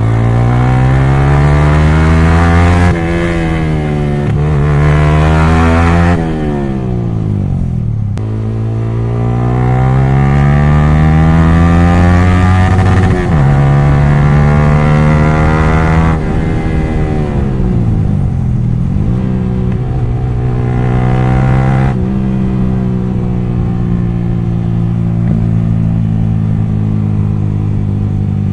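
Yamaha R15 V3's single-cylinder engine through an open exhaust with the dB killer removed, loud while riding. It revs up through the gears with a sharp drop in pitch at each upshift, winds down twice as the throttle is closed, then runs at a steady cruise for the last several seconds.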